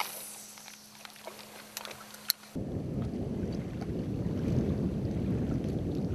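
Wind buffeting the microphone outdoors: an uneven low rumble that starts suddenly about two and a half seconds in, after a quieter stretch with a faint steady hum and a few clicks.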